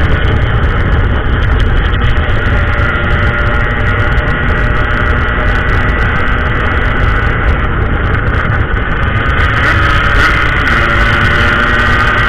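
Yamaha RX-King's two-stroke single-cylinder engine running on the move, with heavy wind rumble on the bike-mounted microphone. The engine note falls and picks up again near the end.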